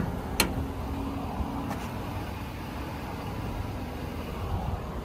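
Steady low rumble of the service truck's engine running at idle, with one sharp metallic click about half a second in as a body compartment door latches shut.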